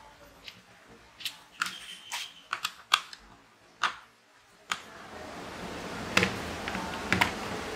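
Small sharp clicks and taps of a screwdriver and fingers on a clamp meter's plastic case as the back screws are undone. Near the middle a steady hiss comes up under a few more clicks.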